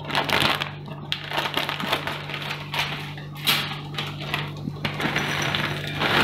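Foil-plastic Kurkure snack packet crinkling and rustling in irregular bursts as it is handled and opened, over a steady low hum.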